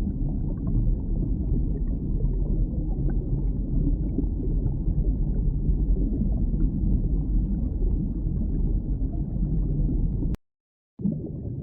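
Muffled, low water rumble with gurgling, as heard underwater. It cuts off suddenly about ten seconds in, and after a brief silence a similar muffled underwater rumble begins.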